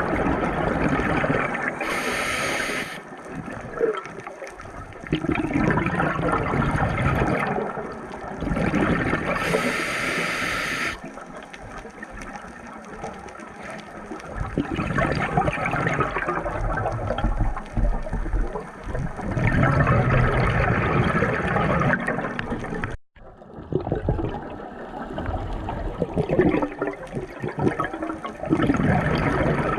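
Water sloshing and gurgling, surging and easing unevenly, with a sudden break about three quarters of the way through.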